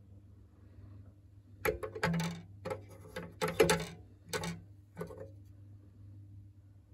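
A steady low electrical hum, with a run of about eight sharp clicks and knocks, ringing briefly, between about two and five seconds in.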